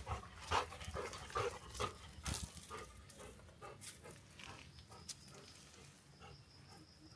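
A dog moving about close by, making a quick run of short sounds in the first three seconds, then fainter ones.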